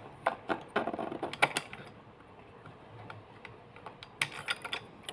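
Sharp clicks and rattles of a Singer 1301 sewing machine's bobbin parts being handled as the bobbin is taken out. There is a cluster of clicks in the first two seconds and another about four seconds in.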